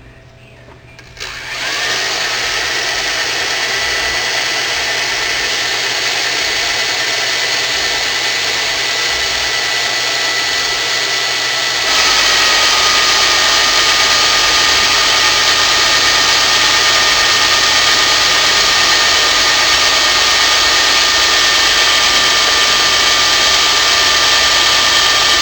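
Line-boring machine's electric motor starting about a second in and running steadily with a high whine, while it bores a Volkswagen engine case; the sound grows louder and hissier about halfway through.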